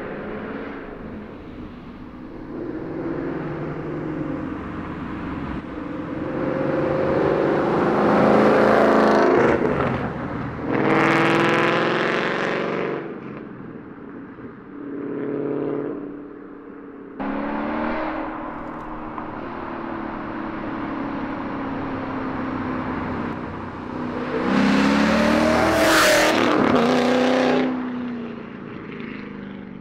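2012 Ford Mustang GT's 5.0 Coyote V8, loud and catless through Borla XR-1 long-tube headers, an off-road X-pipe and ATAK axle-back with the resonator deleted, accelerating hard past and revving, its pitch rising through the gears and dropping away. Several pass-bys are spliced together, the loudest about a third of the way in and again near the end.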